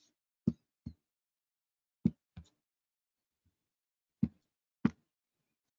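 Six short, sharp knocks in three pairs, spaced a second or two apart, with near silence between them.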